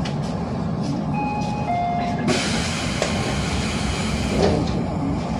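A two-note falling chime sounds, then the sliding doors of a Tobu 10030 series commuter train close with a sudden air hiss. There is a bump about four seconds in as the doors come together.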